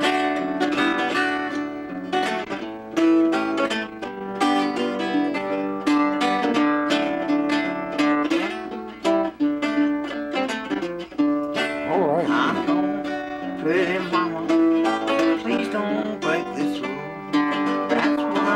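Acoustic guitar played fingerstyle: single picked notes over a repeated bass note, with a few wavering, bent notes past the middle.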